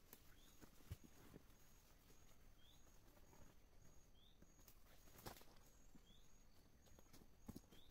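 Faint, scattered dull knocks as heavy blocks of coagulated rubber are shifted and set down on leaf litter, about three in all, the sharpest a little after halfway. Behind them a short rising chirp repeats about every two seconds, and a high pulsing insect-like tone sounds in short dashes.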